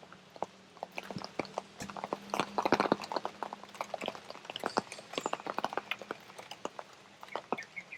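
Raindrops tapping irregularly on an umbrella held close overhead, a quick scatter of sharp ticks that thickens about two to three seconds in.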